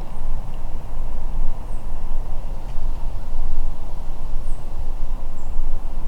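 Wind rumbling and buffeting on the microphone, a loud, uneven low rumble, with a few faint short high chirps.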